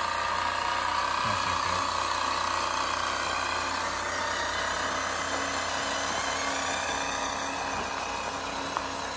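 Radio-controlled scale truck's drive running steadily as it crawls along with a load, a continuous whine with a fainter low hum under it that eases slightly in the second half.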